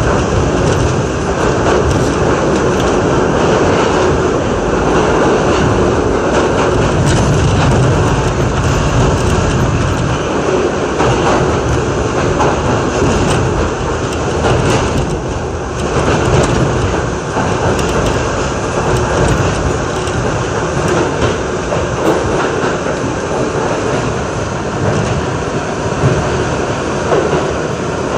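R62A subway train running through a tunnel, heard from inside the lead car: a steady, loud wheel-and-rail rumble with scattered clicks over rail joints.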